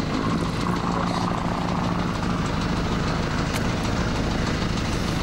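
Small fishing boat's engine idling with a steady low drone, and one light click past the middle.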